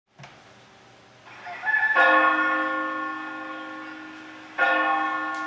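A bell struck several times, each stroke ringing on and slowly fading: a few softer strokes, then a loud one about two seconds in and another near the end.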